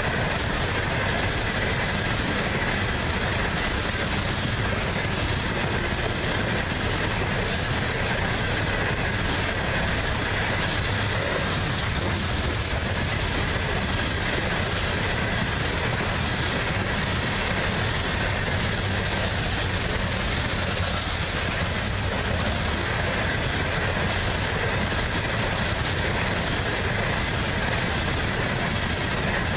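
Loaded coal cars of a long freight unit train rolling past: a steady rumble of steel wheels on rail, with a faint steady high ringing over it.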